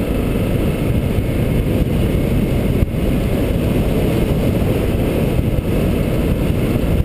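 Motorcycle ridden along a gravel road: a loud, steady low rumble of the running bike and its ride, with no clear engine pitch.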